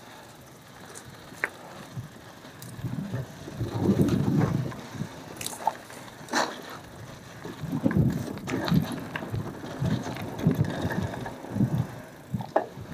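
Cube Analog hardtail mountain bike being ridden over a dirt trail: the tyres rumble unevenly over the ground, louder in surges around four and eight seconds in, with scattered sharp clicks and rattles from the bike.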